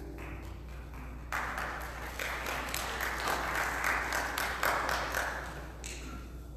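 A congregation applauding in a large, echoing church for about four seconds, starting about a second in as the last note of the prelude dies away.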